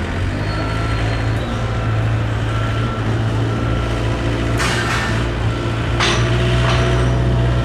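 Diesel engine of heavy construction machinery running steadily while a backup alarm beeps about once a second. Two sharp metal clanks come about two-thirds of the way through.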